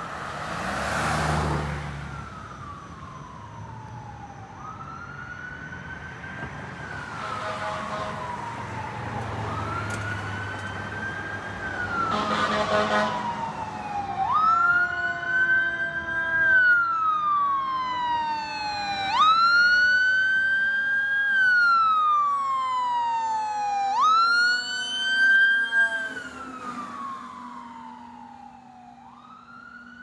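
Fire engine's Federal Q2B mechanical siren wailing: each cycle winds up quickly and coasts down slowly over about five seconds. It grows louder as the truck approaches and passes, then fades as it drives away. In the first dozen seconds a few passing cars swish by.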